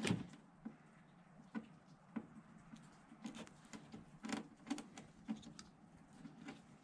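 Faint, irregular clicks and snicks of a hand combination wire stripping and crimping tool working on the ends of the tail light wiring pigtail.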